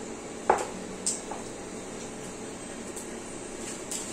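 Mustard seeds and urad dal sizzling steadily in hot oil in a kadai for tempering, with a few faint pops. A sharp knock about half a second in.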